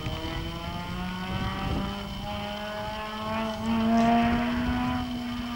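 Straight-piped Honda Civic Type R EP3's four-cylinder VTEC engine with a Buddy Club Spec II replica exhaust and AEM V2 cold air intake, heard from a long way off. The exhaust note rises steadily in pitch as the car accelerates, loudest about four seconds in.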